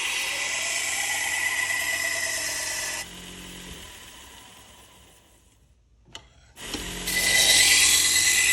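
Harbor Freight 1x30 belt sander with a 3M Cubitron II belt running and grinding a steel butcher-knife blade, with a steady high whine. About three seconds in it cuts out and winds down to near silence; after a click it starts up again and runs loud.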